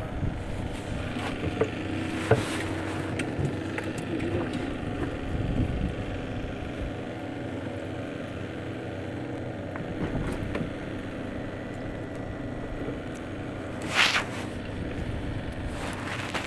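Steady low motor hum over a low rumble, with a few faint ticks and a short loud rustle near the end.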